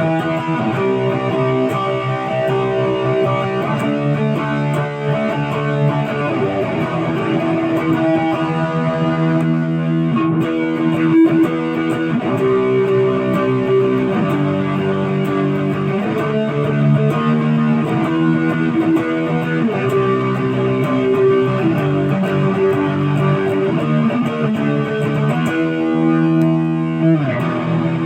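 Busker's Les Paul-style electric guitar being played: a continuous run of sustained notes and chords.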